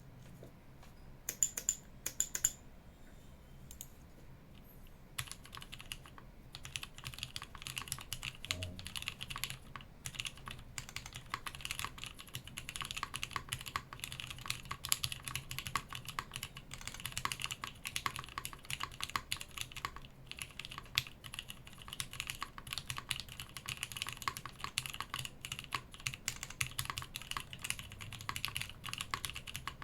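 Typing on a Matrix Noah V2 mechanical keyboard with vintage Cherry MX Black linear switches on an aluminium plate, with GMK keycaps. A few scattered keystrokes at first, then steady continuous typing from about five seconds in.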